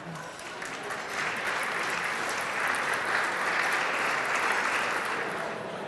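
Audience applauding: the clapping builds over the first second, holds steady, then thins out near the end.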